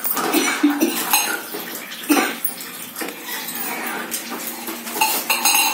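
Steel ladle stirring kadhi in a metal kadai, scraping and clinking against the pan in irregular knocks, with a louder clink about two seconds in and a quick run of clinks near the end.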